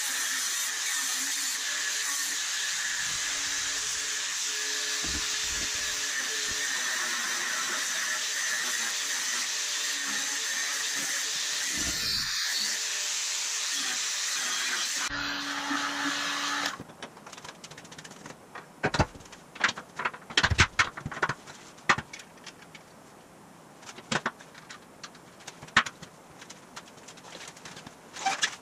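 Steady electric arc-welding hiss on the steel frame rails, running unbroken for over half the clip before cutting off suddenly. After it comes a quieter stretch of scattered sharp metallic knocks and clanks as the steel frame rails are handled.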